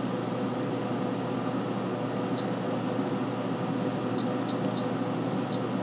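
Operator touchscreen on an ultrasonic cleaning machine beeping five times as keys are tapped on its keypad, the beeps short and high, with three in quick succession near the end. Underneath, a steady machine hum.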